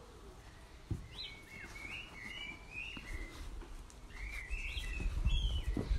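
A songbird singing short, warbling chirped phrases in two bouts. There is a single thump about a second in, and a low rumble builds in the second half.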